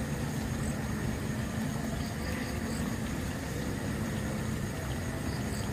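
Steady rushing of a small flooded, muddy stream flowing past the bank, an even noise heaviest in the low end.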